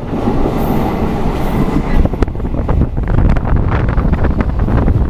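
Passenger train running on the track, heard from aboard: a steady rumble of the wheels with irregular knocks over the rails that become frequent from about two seconds in.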